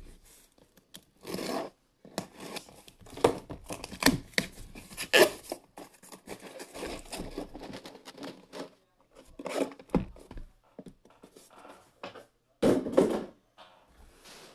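Cardboard shipping box being opened by hand and the shrink-wrapped card boxes inside slid out and stacked: irregular scraping and rubbing of cardboard, with a few sharper knocks as boxes are set down.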